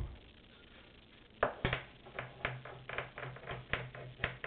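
Wire bore brush on a cleaning rod scrubbed back and forth inside a Remington 887 pump shotgun barrel to loosen rust and powder corrosion. The strokes make a quick, irregular series of sharp scraping clicks, about three a second, starting about a second and a half in.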